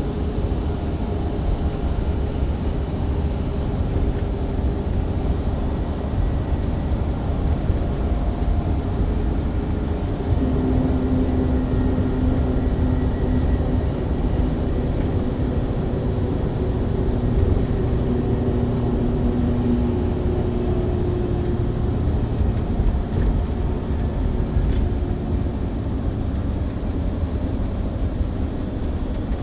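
Mercedes-Benz Citaro C2 LE hybrid bus diesel engine and Voith automatic gearbox running steadily at road speed, heard from inside the bus over tyre and road noise. A steady whine in the drivetrain changes pitch about ten seconds in.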